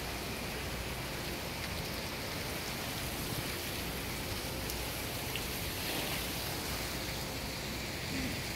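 Steady rushing wind noise on the phone's microphone on an open ship deck, with no distinct events.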